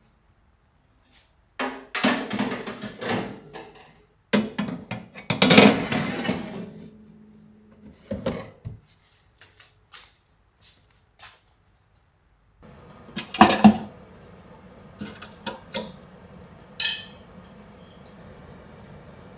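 Metal tray and rack of a countertop mini oven being handled, sliding and clattering with scattered clicks. About two-thirds of the way through, a microwave oven starts a steady hum, with a clatter and a few clicks over it.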